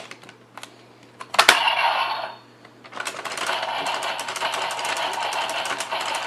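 DX Geartlinger toy morpher: plastic clicks as it is handled, then its small speaker plays electronic sound effects for the Megazord combination. There is a short burst about a second and a half in, then a rapid clattering run of effects from about three seconds on.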